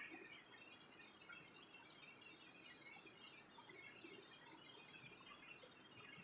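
Near silence, with crickets chirping steadily and faintly in the background.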